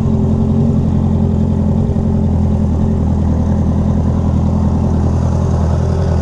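Motorcycle engine idling steadily at an even pitch, loud and close.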